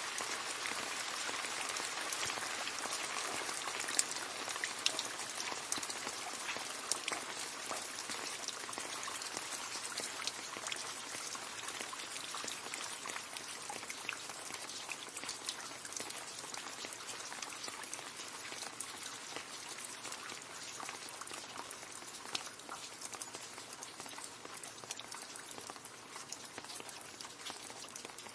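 Rain falling into a puddle: a steady hiss dotted with many small splashes of single drops. A few drops land louder about four and seven seconds in, and the rain grows gradually quieter toward the end.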